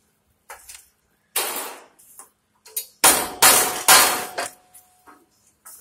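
Rubber mallet tapping a snap pin down into the steel leg pocket of a cart corral. Four sharp knocks come in all: one about a second in, then three in quick succession from about three seconds in, and the steel frame rings briefly after them.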